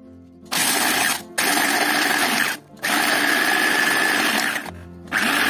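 EZYHOME electric chopper grinding suji rusk pieces into a coarse powder, run in four pulses with brief stops between, the first starting about half a second in. A steady high motor whine runs through each pulse.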